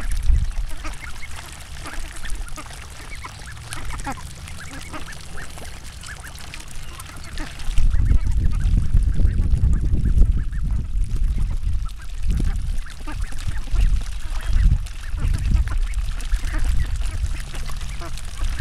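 A flock of domestic ducks quacking while foraging in shallow floodwater. From about eight seconds in, a low rumble on the microphone grows louder under the calls.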